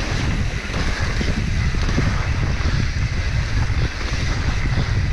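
Heavy wind buffeting on the microphone over the rumble of a mountain bike rolling fast down a dirt trail, with short knocks and rattles from the rough ground.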